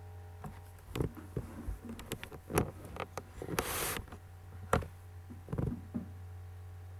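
Computer keyboard typing: irregular clicks and taps for several seconds, with a short hiss about halfway through. A steady low electrical hum runs underneath.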